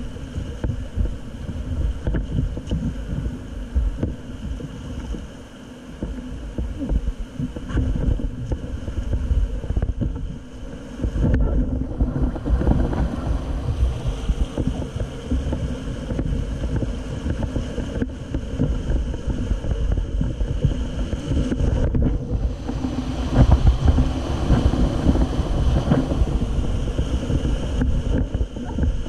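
Rushing whitewater of a river rapid heard from an inflatable raft, with wind buffeting the microphone. The churning grows louder about eleven seconds in and again about twenty-three seconds in as the raft runs into the rapid.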